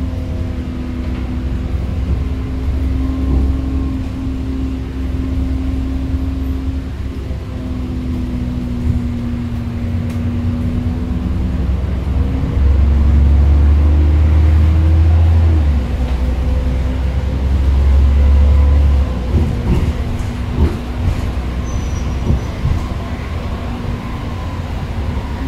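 Moving bus heard from inside: a steady engine and drivetrain hum over a low road rumble, the engine note dipping and rising again, a heavier rumble for several seconds in the middle, then a run of knocks and rattles near the end.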